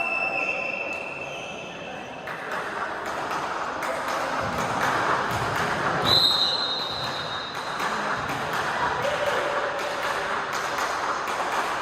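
Volleyball crowd and court noise in a hall: many voices at once, with scattered knocks and a few held high-pitched tones, one about halfway through and a lower one near the end.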